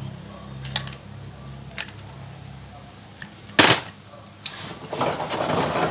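Small clicks and knocks of wet toy cars being handled over a tub of water, with one loud, sharp knock about three and a half seconds in, then water sloshing near the end.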